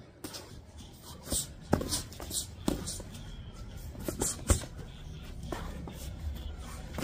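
Irregular smacks and thuds of boxing gloves landing on gloves, arms and shin guards during striking sparring, mixed with shuffling footwork; the loudest smack comes about four and a half seconds in.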